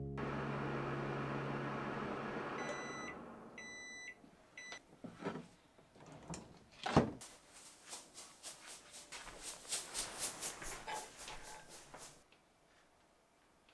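Microwave oven finishing its cycle: a steady hum fades away, three beeps sound, then the drop-down door clicks open about seven seconds in, followed by several seconds of quick light knocks and clinks.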